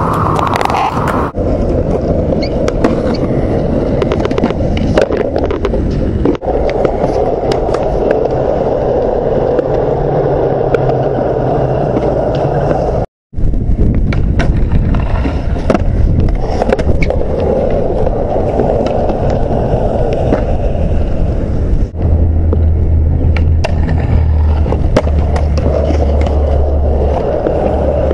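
Skateboard wheels rolling on concrete with a steady roar, broken by frequent sharp clacks of the board's tail popping and landing. The sound drops out completely for a moment about 13 seconds in.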